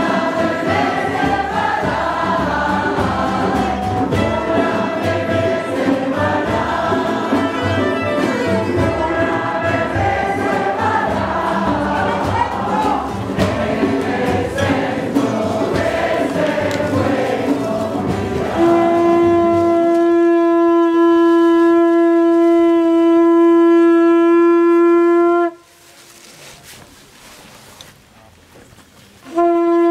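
Voices singing over a low, steady drum-like beat. They give way to a long, loud blast on a horn held on one steady note for about seven seconds. It cuts off, and a second blast starts near the end.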